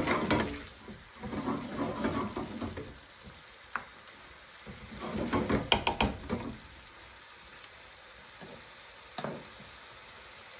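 Chicken curry sizzling in a hot pan while a spoon stirs and scrapes through it in bouts, with a few sharp knocks of the spoon against the pan; after about six and a half seconds the stirring stops and only a low steady sizzle remains, broken by one more knock near the end.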